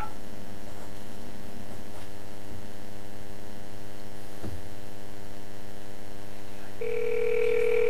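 Steady electrical hum on a telephone line while a dialled call connects, with a faint click about four and a half seconds in. Near the end a steady ringing tone starts on the line.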